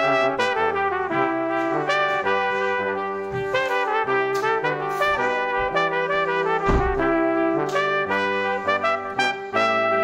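Background music: a brass melody moving through quick note changes, with a few sharp percussive hits.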